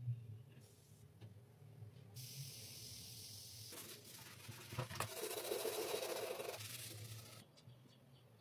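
A spray hissing steadily for about five seconds, starting and stopping abruptly, with a rougher lower rush in its middle and a sharp click about five seconds in.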